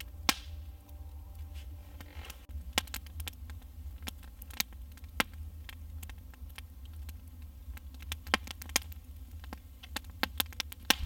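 Campfire crackling: irregular sharp pops and snaps from burning firewood that is wet inside, over a low steady rumble.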